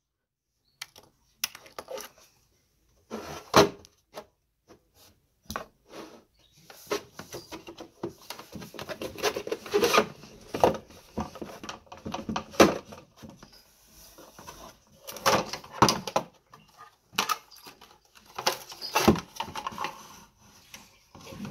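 Fingerboard being ridden on a small grip-taped ramp: the plastic wheels roll and scrape, and the board clacks sharply again and again as it is popped and landed. A longer stretch of rolling and scraping comes about a third of the way in.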